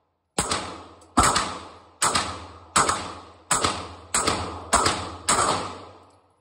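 Eight pistol shots fired at a steady pace, roughly one every three-quarters of a second, each shot trailing off in an echo.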